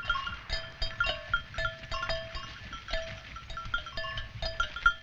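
Many small livestock bells clinking irregularly, short ringing notes at several different pitches overlapping one another, as from a flock grazing.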